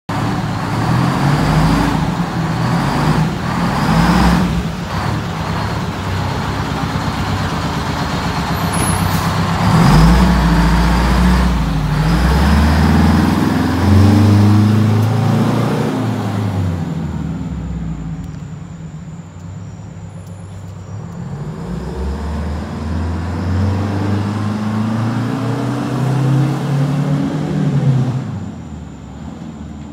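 1977 American LaFrance pumper fire engine running, then pulling away and accelerating. Its engine note rises twice, with a drop between the rises, and fades as the truck drives off.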